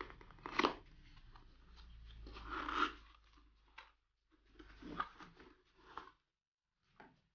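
Packaging being handled as a keyboard box is opened: several short bursts of rustling and scraping of cardboard and wrapping.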